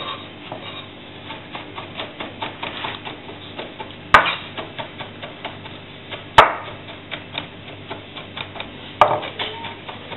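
Chef's knife chopping olives, capers and anchovies on a red cutting board: quick, irregular knife taps on the board, with three louder knocks about 4, 6½ and 9 seconds in.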